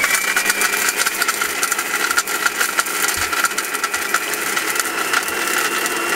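Lords Xtra Hotel King 1400-watt mixer grinder running, grinding whole dry spices such as turmeric and cinnamon in its stainless-steel jar. A steady high motor whine with hard spice pieces rattling rapidly against the steel.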